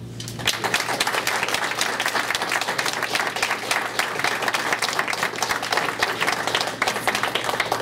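A small audience clapping, breaking out about half a second in and continuing as dense, steady applause.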